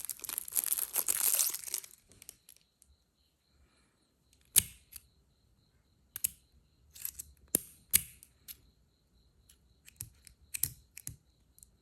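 Packaging crinkling for the first two seconds, then a series of sharp metallic clicks from a Zippo lighter's hinged lid snapping open and shut and its wheel being flicked. No flint is fitted, so it does not spark.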